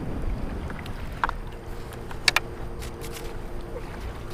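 Wind buffeting the microphone as a low, steady rumble, with two sharp clicks a little past two seconds in. A faint steady two-note hum begins about a second in.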